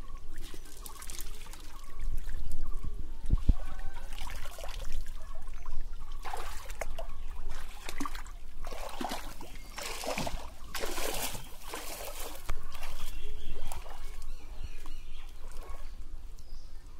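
Shallow pond water splashing and trickling in irregular bursts as a person wades through it and handles a wet cast net and a pot of water.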